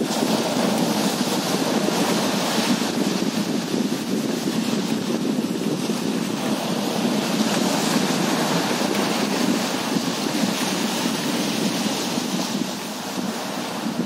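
Small sea waves breaking and washing up the beach in steady surf, swelling and easing every few seconds, with wind rumbling on the microphone.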